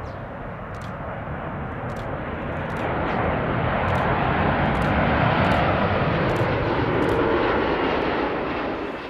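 Jet engine noise of a Boeing 787-9 airliner on landing approach passing low and close, a steady rushing sound that swells to its loudest about halfway through and then cuts off suddenly at the end.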